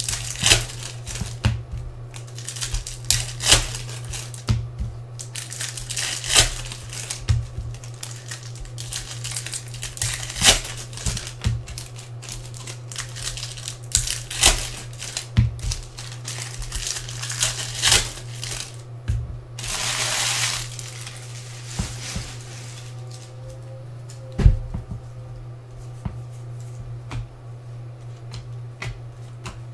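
Foil wrappers of Bowman baseball card packs crinkling and tearing as they are ripped open by hand, in quick irregular crackles, with one longer tear about twenty seconds in. A steady low hum runs underneath.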